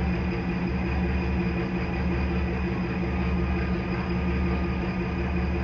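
Steady low drone of a boat's engine running, heard on board.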